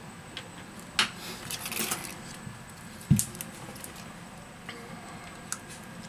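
Handling noises from a disassembled smartphone and its loose display module being picked up and moved: a sharp click about a second in, a brief rustle, then a dull knock about three seconds in, the loudest sound, followed by a few light ticks.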